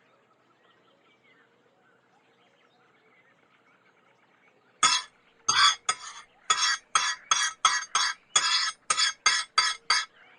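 Cutlery clinking against a plate while eating, a quick irregular run of about a dozen sharp clinks starting about halfway through. Faint background ambience before it.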